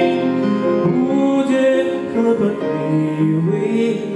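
A man singing a slow song through a microphone, with grand piano accompaniment.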